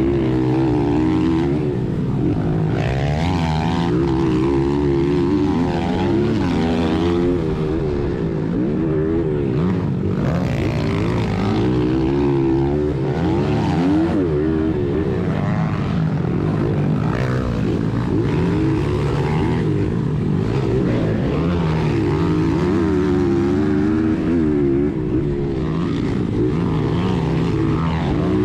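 Honda XR100R's four-stroke single-cylinder engine at racing throttle, revving up and down continually through corners and straights, heard from on the bike.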